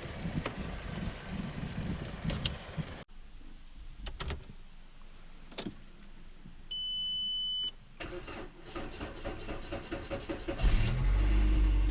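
2005 VW Jetta's 2.0 engine being jump-started on a freshly replaced alternator: a one-second steady beep about seven seconds in, a few seconds of cranking, then the engine catches about ten and a half seconds in and runs steadily and loudly.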